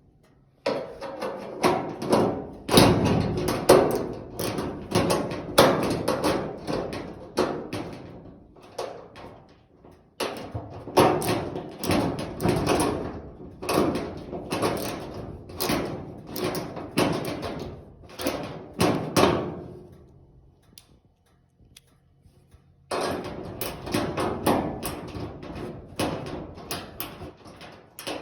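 Repeated knocking and clattering of hard parts being handled, in three busy stretches with a pause of a few seconds near the end.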